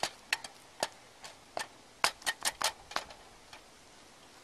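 Metal utensil clicking and scraping against a thick pot while stirring scrambled eggs: about ten sharp, irregular taps, bunched together just past the middle.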